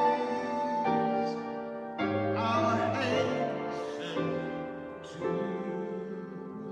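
A solo male voice singing a hymn with piano accompaniment; new piano chords are struck about once a second and fade between strikes.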